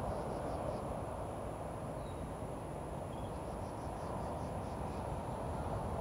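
Outdoor ambience: a steady noisy hiss with a low rumble underneath, and faint high chirps in two short series, near the start and from about three and a half seconds in.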